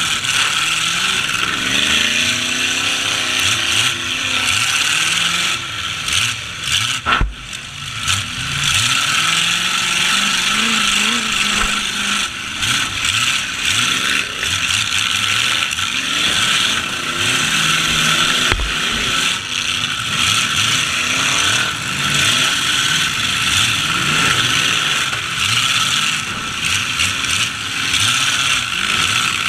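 Demolition derby trucks' engines running hard, several at once, their pitches rising and falling as they rev, over a dense mechanical rattle. A single sharp bang comes about seven seconds in.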